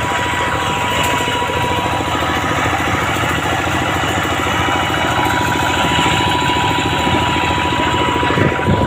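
Two-wheel hand tractor's single-cylinder diesel engine running steadily while the tractor is under way, a fast, even chugging.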